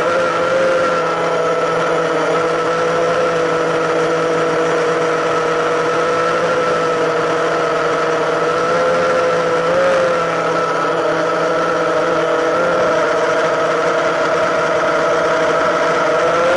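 Drone motors and propellers heard from the onboard camera, a loud steady whine that rises slightly in pitch for a moment about ten seconds in.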